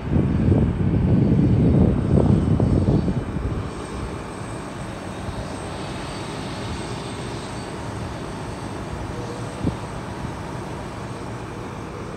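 Jet airliner's engines running as it taxis in, a steady rushing rumble with a faint high whine. The rush is louder for the first three seconds or so, then settles to a steady lower level.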